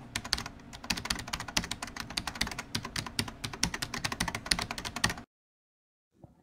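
Rapid, irregular clatter of keyboard typing that stops abruptly about five seconds in.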